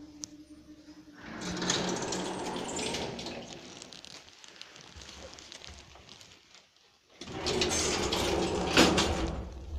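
Automatic lift doors sliding open with a mechanical whirr, then after a quiet pause sliding shut again and closing with a loud clunk near the end.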